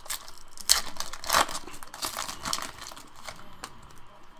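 Foil wrapper of a trading card pack crinkling and tearing as it is opened, a run of crackly rustles with the loudest about a second in, settling after about three seconds.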